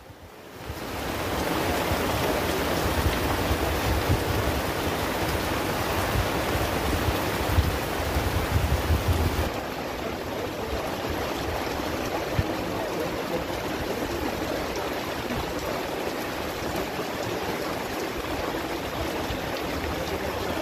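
Heavy rain pouring down on and around a thatch-and-tarpaulin shelter, a steady dense hiss, with a low rumble in the first half that eases about halfway through.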